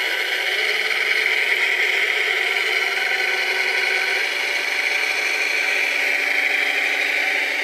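Motors of a radio-controlled scale model Cat 966 wheel loader whirring steadily as it pushes dirt, the pitch stepping up slightly about four seconds in.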